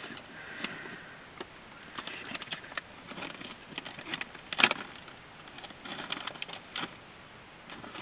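Scattered crinkles and clicks of a plastic beef jerky bag being handled and rummaged through, with one sharper snap about four and a half seconds in.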